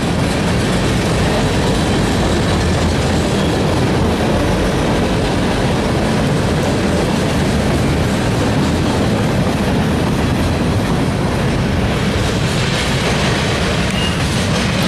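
Freight train of gondola cars rolling past close by: steady, loud noise of steel wheels running on the rails.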